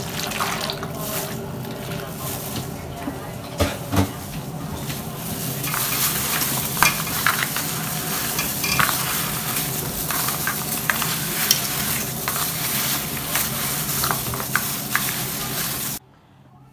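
Water poured from a mug over raw seasoned potato chunks in a pan, then a hand in a plastic glove tossing and mixing the wet potatoes: crackly rustling and wet squelching with small knocks of potato pieces. A couple of louder knocks come a few seconds in, and the sound stops abruptly near the end.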